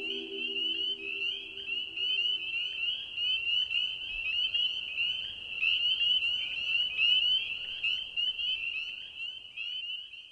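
Dense, rapid high-pitched chirping like a chorus of frogs, many short rising calls a second, fading out at the very end. A low held musical chord dies away under it in the first two seconds.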